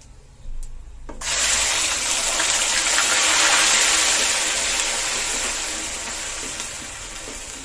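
Onion paste hitting hot desi ghee in a kadhai and sizzling. It starts suddenly about a second in, is loudest through the middle, then slowly dies down.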